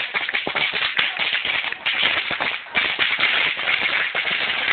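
Firecrackers going off in a rapid, irregular string of crackles, with a brief lull about two and a half seconds in.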